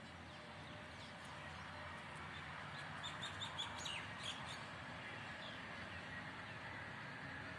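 Songbirds chirping over a steady background hiss, with a quick run of short high chirps a few seconds in and scattered single down-slurred notes.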